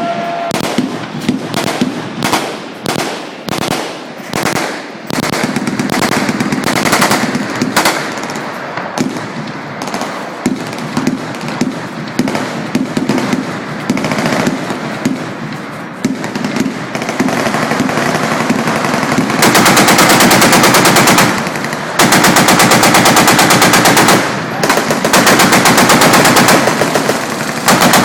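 Automatic weapons firing on a range, several guns at once: separate sharp shots at first, then overlapping bursts. In the second half come long, very rapid sustained bursts, broken by short pauses.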